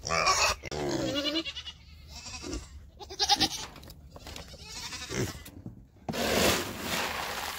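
Nigerian dwarf goats bleating, with quavering calls in the first second and a half and another around three seconds in. Near the end a plastic scoop digs into a metal can of feed pellets with a rustling hiss.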